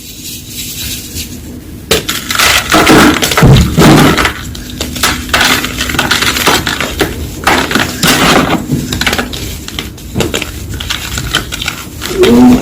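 Blocks of gym chalk being crushed, with dense, irregular crisp crunches and cracks starting about two seconds in.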